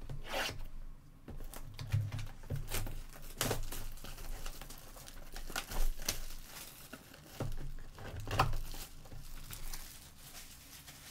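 Plastic wrap being torn and crinkled off a sealed cardboard box of Select Basketball H2 trading cards as the box is unwrapped and opened, a string of irregular rips and rustles.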